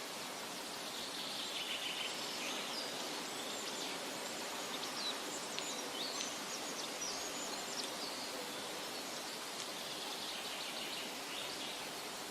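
Steady rush of flowing water, with small birds chirping in short bursts over it.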